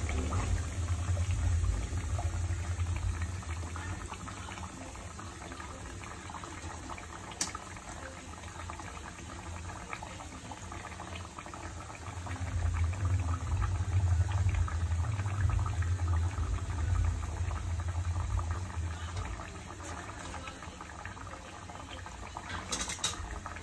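Rice-flour adai deep-frying in hot oil: a steady bubbling, crackling sizzle, with a low rumble that swells from about twelve to eighteen seconds in. A single sharp click about seven and a half seconds in.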